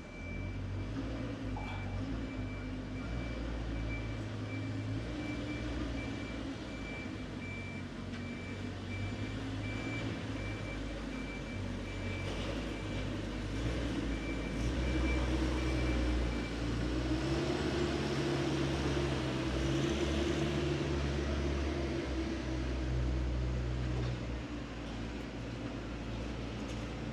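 Construction machinery with diesel engines running at a construction site, a steady low hum that grows louder past the middle. A repeated high beep sounds over it and stops about two thirds of the way in.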